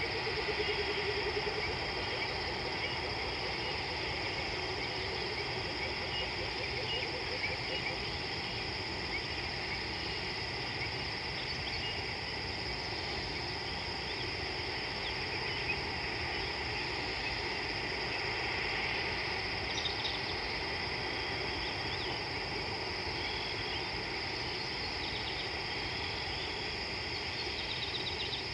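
Evening insect chorus, mainly crickets, a steady high-pitched trilling with a few short chirps, over a low, even rumble of background noise.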